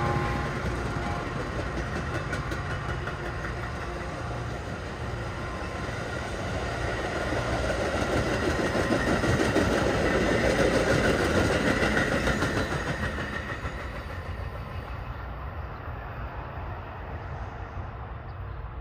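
Metra bilevel commuter train cars passing, steel wheels running on the rails. The sound swells as the last car goes by, about ten seconds in, then fades away as the train recedes.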